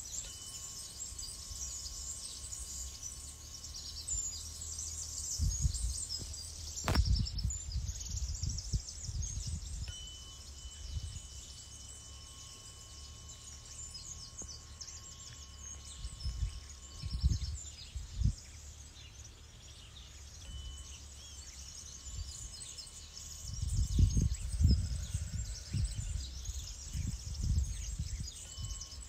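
A tuning fork struck about every ten seconds, four times, each time ringing a faint, steady high tone with a higher overtone that dies away over several seconds. Birds chirp throughout, and gusts of wind rumble on the microphone, loudest in the middle and near the end.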